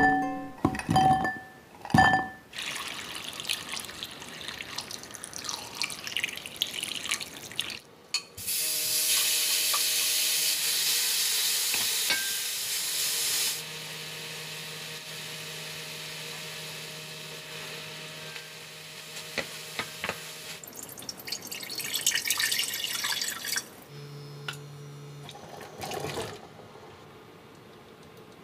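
Water running from a kitchen tap into a sink, loudest for about five seconds in the middle, with splashing and rinsing sounds before and after it.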